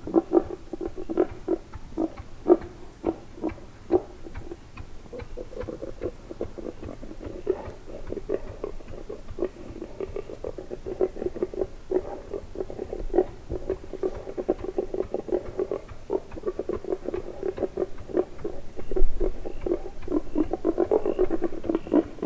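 Wild boar grunting in a quick, continuous run of short grunts, several a second, with a louder stretch near the end.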